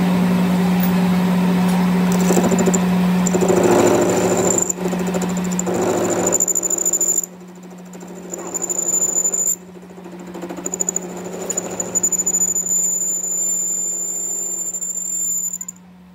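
Metal lathe machining a camshaft: the cutting tool squeals high and thin against the spinning shaft over the steady hum of the lathe, the cut easing off and coming back a couple of times before it stops suddenly near the end.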